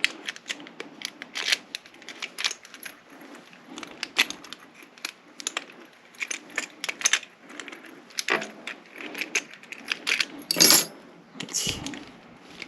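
Light metallic clicks and clinks of small lock parts and tools being handled as a rekeyed lock is reassembled, irregular throughout, with a louder clatter about ten and a half seconds in.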